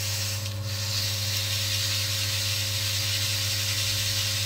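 Electric motor of an oil friction test stand running steadily with a hum and a hiss over it, while the test roller is cleaned of scuff marks left by the previous test.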